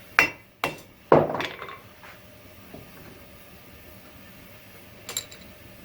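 Hand hammer striking hot spring steel on an anvil: three sharp blows in the first second or so, the last one the loudest with a brief rattling ring after it. A short metallic clink with a high ring near the end.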